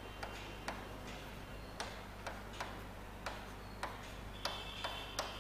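Writing on a board: light, irregular taps and clicks about every half second, with a faint high squeak near the end.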